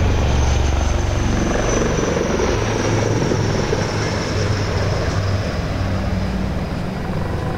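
A formation of three HAL Advanced Light Helicopters flying over: loud, steady rotor and turbine noise with a faint high whine that slowly falls in pitch.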